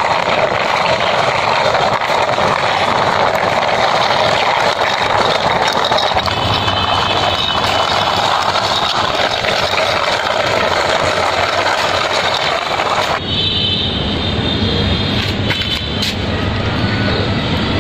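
Plastic wheels of a hand-pushed toy car rolling along a rough concrete wall top, a steady rolling noise. About thirteen seconds in the higher part of the noise drops away and a lower rumble remains.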